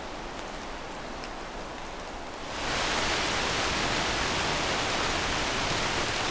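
Heavy rain falling on woodland leaves, a steady hiss that jumps louder and brighter about two and a half seconds in.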